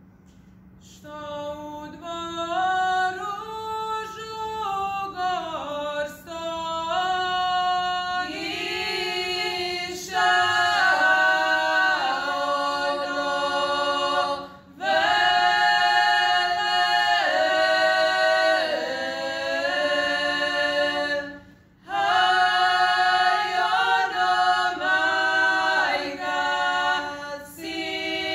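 A group of five women singing a traditional Croatian wedding song (svatovska pjesma) a cappella in folk style. One voice leads the opening phrase and the others join about eight seconds in. Phrases are broken by short breath pauses, twice.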